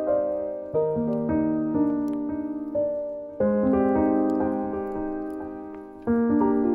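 Background piano music: gentle arpeggiated chords, each phrase struck and left to ring and fade before the next begins.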